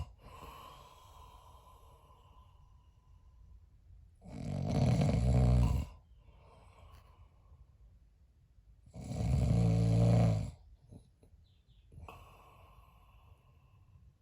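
A man snoring in his sleep: two loud snores, each about a second and a half long and about five seconds apart, with quiet breathing between.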